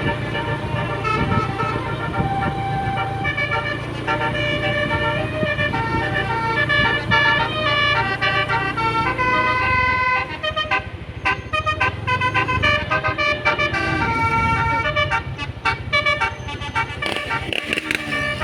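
Telolet horn on a tour bus: several trumpet horns sounding together in a quick run of changing notes, playing a melody, with the bus engine running underneath.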